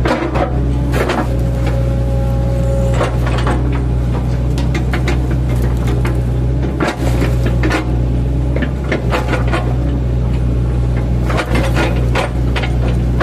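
Mini excavator's diesel engine running steadily under load, with irregular sharp cracks and crunches as its bucket chips into a felled oil palm trunk.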